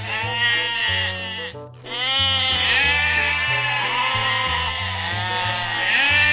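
Music with a stepping bass line, and an animal bleating over it in two long, wavering stretches with a short break a little under two seconds in.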